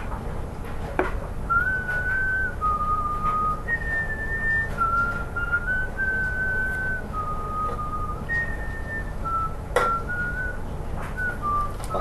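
A person whistling a slow tune, one clear note at a time, the notes held and stepping up and down in pitch. Two sharp clicks, about a second in and near the end.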